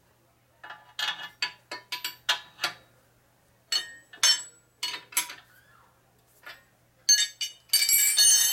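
Steel wrenches clinking against the milling machine's table and angle plate as they are used and set down: a run of sharp metallic clinks with a brief ring, in three clusters, densest near the end.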